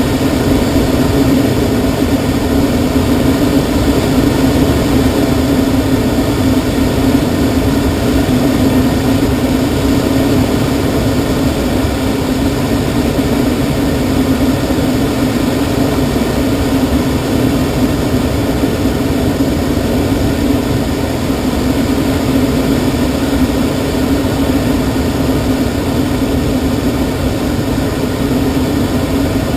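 Steady rush of air streaming over a glider's canopy and fuselage in flight, heard inside the cockpit, with a constant low hum under it.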